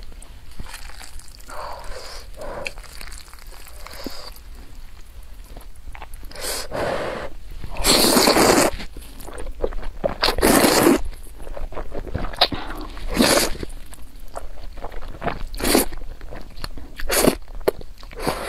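A person eating noodles close to the microphone: several loud, drawn-out slurps of noodles, the two longest about halfway through, with wet chewing between them.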